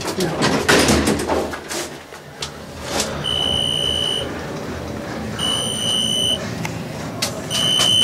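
Old Otis elevator car travelling down: rattling and clatter over the first few seconds, then a steady running rumble. From about three seconds in, a high electronic beep about a second long sounds roughly every two seconds.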